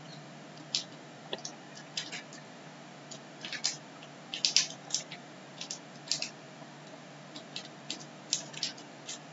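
A fresh green cowpea pod is being split open by hand along its seam. It gives an irregular string of small, crisp snaps and clicks as the pod walls tear apart.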